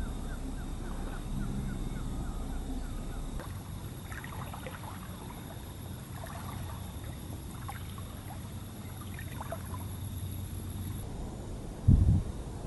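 Lakeshore ambience: small waves on the water with a faint steady low hum and a few faint short chirps. A single short, loud thump comes near the end.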